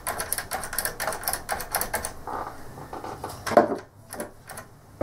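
A quick run of sharp clicks and rattles, about six a second for some two seconds, from handling an aerosol can of contact cleaner. A single louder knock follows about three and a half seconds in.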